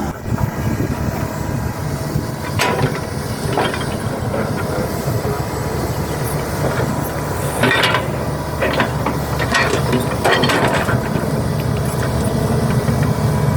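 Hydraulic excavator's diesel engine running steadily, with a string of irregular metallic clanks and knocks from the machine at work, about six in all.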